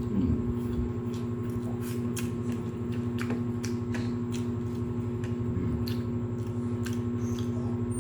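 Close-up eating sounds: chewing, with scattered short wet clicks and smacks, over a steady mechanical hum.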